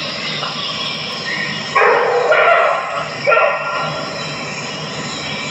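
Philippine brown deer calls played through an exhibit loudspeaker: two loud calls about a second and a half apart, the first one longer.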